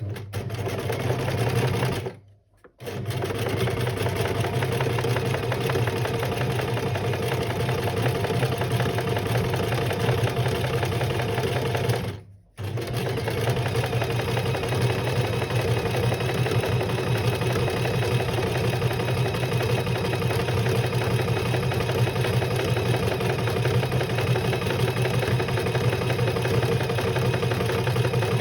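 Electric sewing machine running steadily, stitching down the sides of a fabric strip, with two brief stops, about two seconds in and about twelve seconds in.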